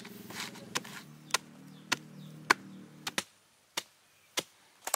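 A hand tool chopping into split sago palm pith: sharp strikes at a steady pace of about one every 0.6 seconds. A low steady hum runs underneath and stops about three seconds in.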